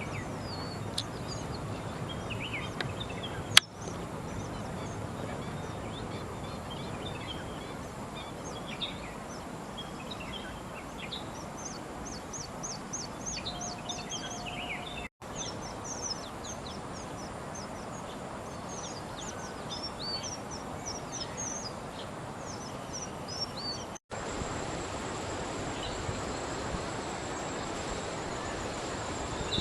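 Several birds calling: many short chirps and quick down-slurred notes over a steady outdoor background hiss, with one sharp click about three and a half seconds in. The recording drops out briefly twice.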